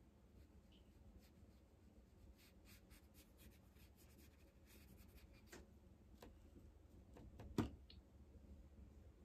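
Faint scratchy strokes of a paintbrush on watercolour paper, followed by a few small clicks and one sharper tap near the end as the brush is dipped into the pans of a watercolour palette.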